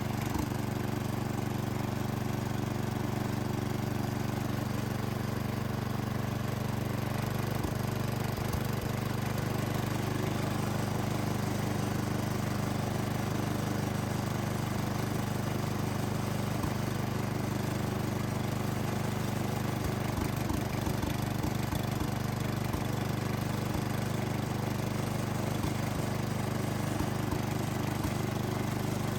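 Sears garden tractor engine running steadily, turning a belt-driven Sears 4000 watt generator attachment. It is driven through a belt that is not the proper one, so the generator works only partly.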